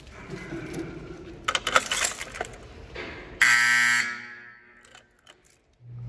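Simplex 4030 fire alarm horn sounding a loud buzzing blast about three seconds in, which rings off and fades over about a second. Before it there are clicks and rattling from handling. Just before the end the buzz starts again briefly and cuts off abruptly.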